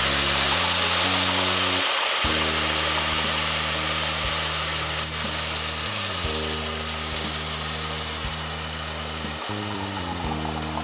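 Water poured onto rice freshly fried in oil and ghee in a hot pot, hissing and sizzling and easing off toward the end, under background music with a slow run of bass notes.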